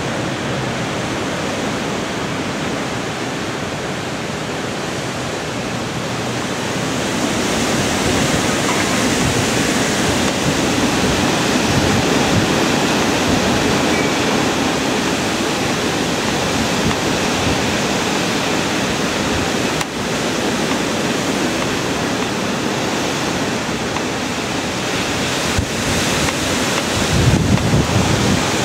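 Gusty hurricane winds rushing through leafy birch and other trees, a steady loud noise of tossing leaves and branches that swells about seven seconds in. Near the end, gusts buffet the microphone with low rumbles.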